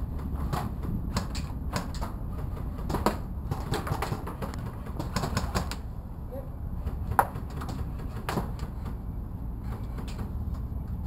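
Irregular sharp clicks and taps, as from airsoft guns firing and BBs striking, the loudest about seven seconds in, over a steady low rumble.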